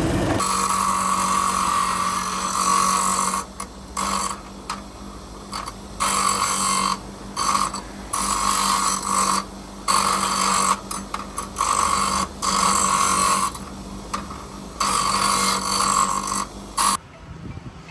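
Angle grinder running steadily, its disc pressed against steel again and again in short passes, each giving a loud grinding hiss that stops when the disc is lifted.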